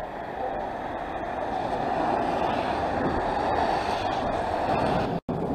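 Road traffic noise from cars passing along the street, a steady rush that swells over the first couple of seconds, broken by a brief dropout near the end.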